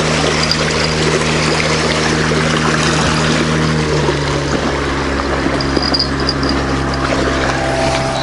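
Motorboat engine running at a steady speed, its pitch dropping slightly about four seconds in, over a hiss of water.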